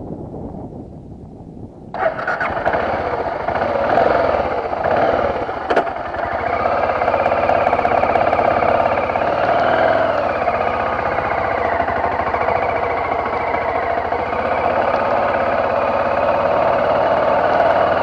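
BMW F650GS motorcycle engine starting about two seconds in, then running with its pitch rising and falling a few times before settling to a steady idle.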